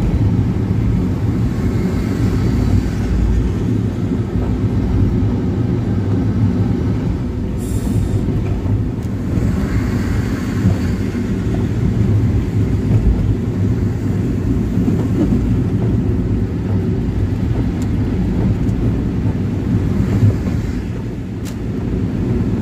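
Steady low rumble of a vehicle's engine and tyres on a wet road, heard from inside the cabin while driving in rain, with brief swells of hiss about 8 and 10 seconds in.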